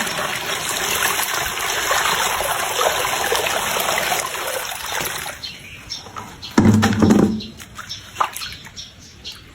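Water spraying and splashing in a steady hiss that stops about five seconds in. A short, loud low-pitched sound follows about two seconds later, then a few light clicks.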